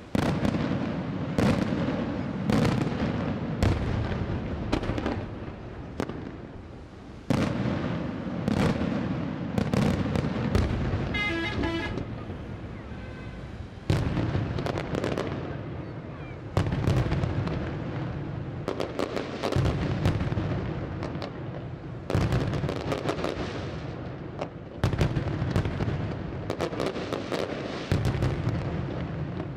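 Daytime fireworks display: dense, rapid bangs of aerial shells bursting into coloured smoke over a continuous low rumble. The bangs come in barrages, with a fresh loud surge every few seconds.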